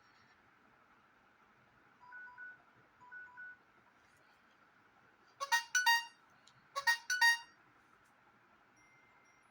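Samsung Galaxy S6 playing stock alert tones through its speaker. First a soft two-note beep comes twice, about a second apart. Then a louder, brighter chime of quick notes sounds, and repeats about a second and a half later.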